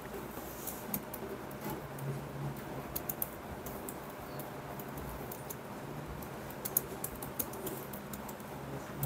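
Scattered light clicks and taps over a faint steady hum in a quiet classroom while students write in their notebooks.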